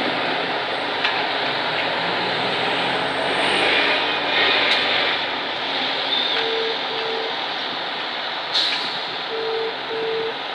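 Road traffic: a single-decker bus and cars driving past with steady engine and tyre noise. Two pairs of short, equal beeps sound, one past the middle and one near the end.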